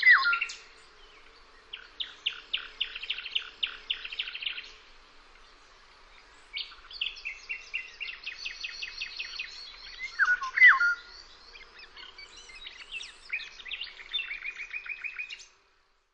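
Wild birds singing: bursts of rapid, repeated trills with a few loud, sharp down-slurred calls in between. The sound cuts off suddenly near the end.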